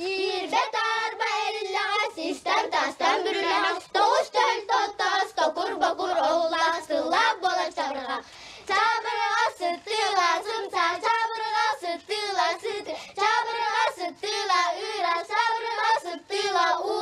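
A small group of young girls singing a song together, unaccompanied, in short phrased notes.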